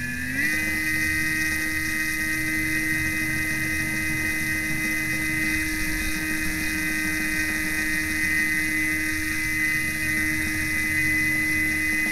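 Small electric motor of a radio-controlled model boat running at speed: a steady high whine that rises in pitch just after the start, then holds.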